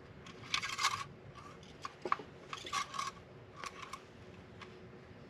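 Light metallic clicks and a few short scraping rubs, the sound of metal parts being handled under the hood of a car.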